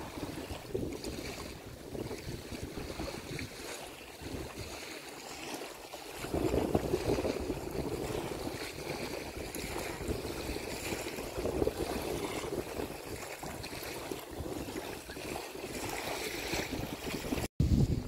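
Wind gusting against the microphone, rising and falling, with waves lapping on the shore.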